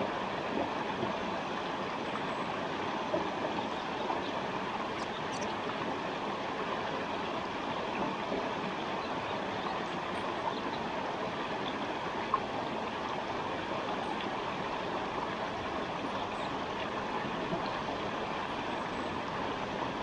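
Forest stream flowing steadily, a constant even rush of water.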